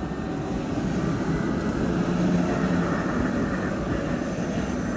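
SL95 articulated tram passing close by: a rumble of steel wheels on street rails with a low hum that swells about two seconds in and eases as the tram goes by.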